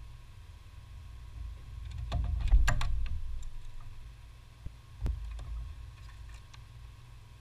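A hand tool clinking against metal parts under the hood: a quick cluster of sharp clicks about two to three seconds in and a single knock about five seconds in, over a low handling rumble.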